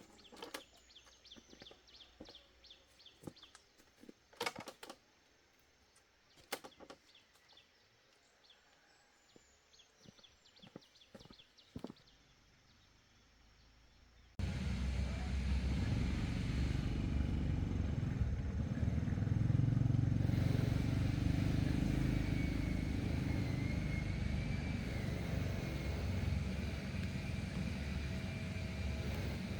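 Quiet outdoor ambience with scattered knocks and short high chirps, then, about halfway through, a sudden switch to a loud, steady low rumble like a running motor vehicle, which continues to the end.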